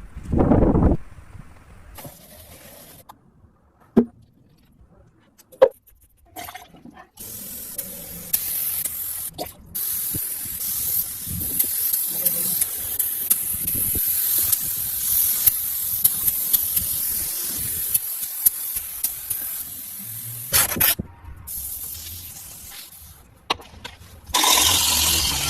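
Hissing spray in long stretches cut together, with a few sharp knocks and clicks in the quieter first part.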